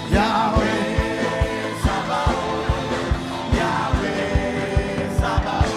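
Gospel worship music: a steady low beat about two to three times a second under sustained chords, with a singing voice.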